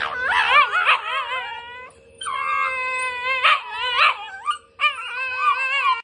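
Two Shiba Inus yowling at each other with teeth bared: high, wavering drawn-out cries in three long stretches, with brief breaks about two seconds in and near the five-second mark.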